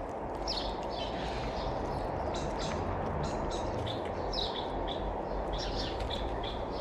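Small birds chirping in quick, short calls, several a second, over a steady low background rumble. Faint short clicks sound through them, fitting cats crunching dry kibble close by.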